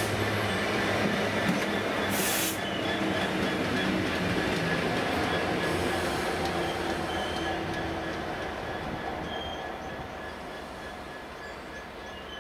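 Class 66 diesel locomotive running light engine, its two-stroke V12 diesel and wheels on the rails loud as it passes close by, then fading steadily as it pulls away. There is a brief rush of noise about two seconds in.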